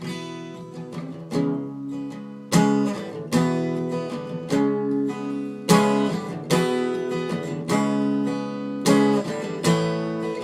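Acoustic guitar strumming chords, a sharp strum about once a second with the chord ringing on between, changing chords every few strums.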